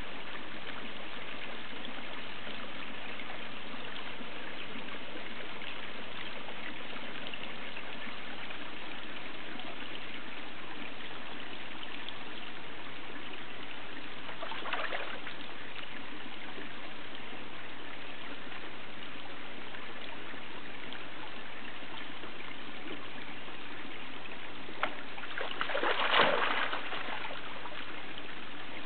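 Water trickling steadily into a garden koi pond. A brief louder noise comes about halfway, and a louder one, lasting about a second, comes near the end.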